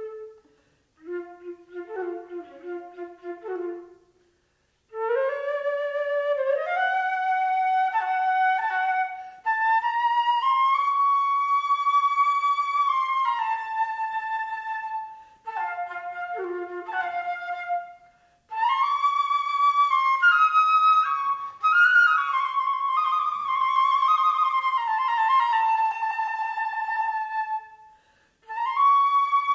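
Solo flute playing in phrases broken by short pauses: a low phrase at the start, then a line that climbs step by step to long held notes in the middle register.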